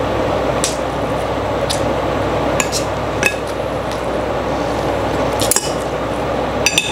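Metal spoon and chopsticks clinking against a ceramic rice bowl while stirring and scooping rice: about six separate sharp clinks over a steady background hiss.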